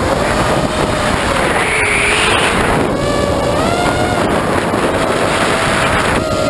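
Electric motors of a small RC aircraft whining on board, the pitch swinging up and down with throttle, over a steady rush of wind on the microphone.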